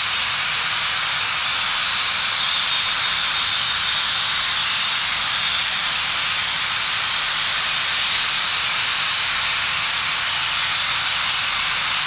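A steady, unchanging hiss, strongest in the high middle range.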